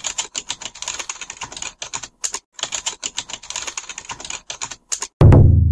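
Keyboard-typing sound effect: rapid clicking keystrokes in two runs with a brief pause about halfway. Just before the end, a sudden loud deep boom.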